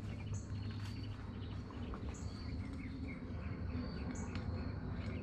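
Quiet workshop background: a steady low hum with a faint, short high chirp repeating about every two seconds, and a few light clicks from hands working on the cylinder head.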